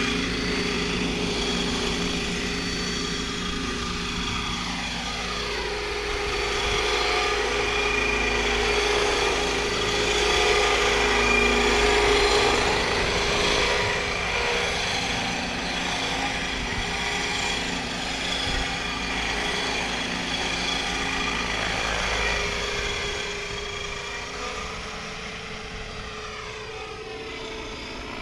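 Radio-controlled scale MD520 helicopter in flight: a steady whine of rotor and motor blended with its Aerosound module's simulated turbine sound. It is loudest about halfway through as it passes close, and fades near the end as it climbs away.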